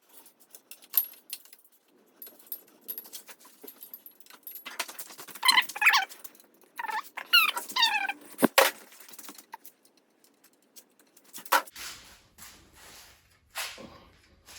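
A dog whining: several short, high cries that bend up and down in pitch about halfway through, among scattered small clicks and knocks, with one sharper knock just after the cries.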